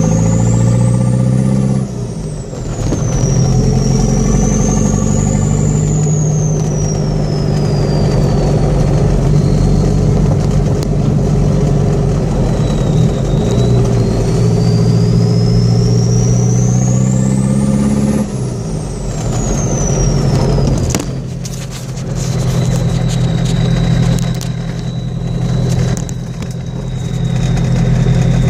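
1981 Toyota Hilux 2.2-litre diesel with a retrofitted VW Golf 1.6 TD turbocharger, running through an open 2.5-inch downpipe. A high turbo whistle climbs with the engine as it pulls and falls away when the throttle is lifted, twice. Near the end a steady, lower whistle holds over the diesel's running note.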